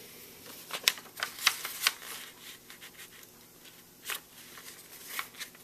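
A sheet of white paper rustling and crackling as it is folded in half edge to edge, with several crisp crackles in the first two seconds and another about four seconds in.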